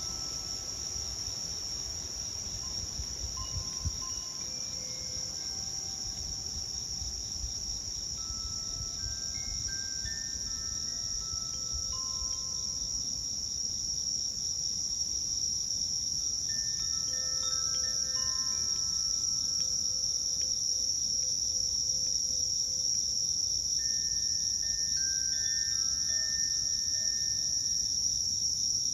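A steady, high insect chorus, with a Koshi Terra chime sounding softly now and then: scattered single notes that ring briefly, gathering a little more thickly in the middle and near the end.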